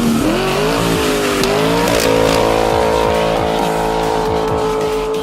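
Car engine revving: the revs climb over the first two seconds, then hold high and steady to the end of the burst, heard through a performance exhaust, with music underneath.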